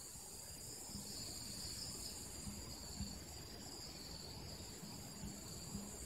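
A steady chorus of insects trilling in several high-pitched bands, with a faint low rumble and a few soft knocks beneath.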